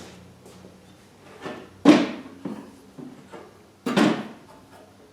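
Two sharp knocks about two seconds apart, each with a short ring after it, with lighter clicks and rattles between: parts or tools being handled and set down during assembly.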